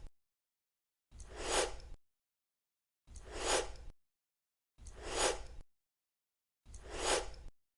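A short breathy whoosh repeated four times, about every two seconds, each one swelling and fading, with dead silence between.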